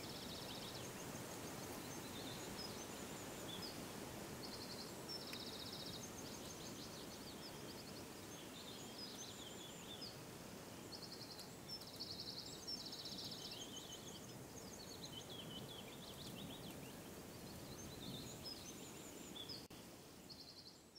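Outdoor ambience: a steady low background hiss with small birds' high chirps and short rapid trills repeating throughout, fading out at the very end.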